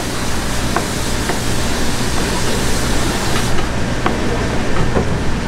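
Steady loud hum and hiss of market background noise, with a few faint knife taps on a plastic cutting board as salmon is sliced into sashimi.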